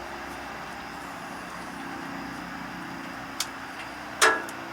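Steady low background hum with a faint tone, a small click a little past three seconds, and one sharp metallic clank with a brief ring just after four seconds, typical of a hand tool knocked or set down on metal.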